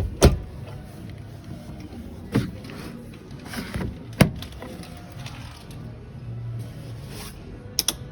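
Sharp mechanical clicks and clunks from a display appliance being handled, five or so spread over several seconds, with a double click near the end.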